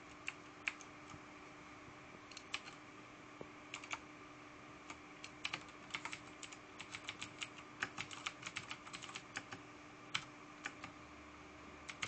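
Typing on a Razer BlackWidow Ultimate mechanical keyboard with clicky Cherry MX Blue switches: irregular sharp key clicks, a few scattered ones at first, then a quick run of keystrokes through the middle, easing off near the end.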